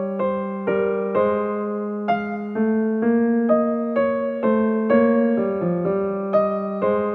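Slow keyboard music in the manner of an electric piano: single notes struck about twice a second over a held low note.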